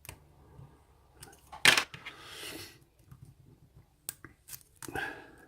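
Lock-picking tools working in an Abus 54T1/50 brass padlock: scattered light metallic clicks and scrapes, with one sharp clack about a second and a half in followed by a brief rustle, and another short burst of noise near the end.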